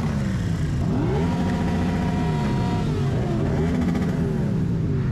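Motorcycle engine revving: the pitch climbs about a second in, holds for a moment, then drops and rises again.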